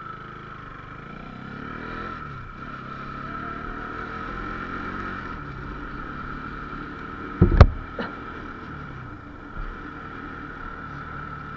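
Motorcycle engine running under way, with its pitch shifting as the rider changes speed, and a steady high whine over it. One loud knock comes about seven and a half seconds in.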